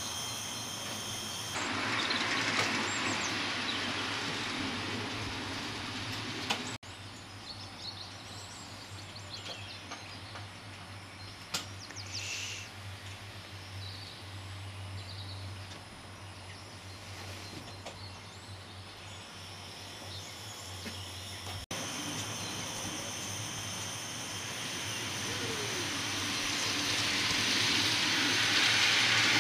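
Steady hiss of 5-inch-gauge live-steam model locomotives in steam on a steaming bay, over a low hum, swelling louder near the end.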